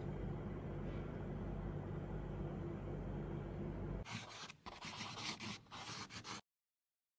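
A steady low hum, then about four seconds in a couple of seconds of scratchy scraping and rubbing strokes that cut off suddenly into dead silence.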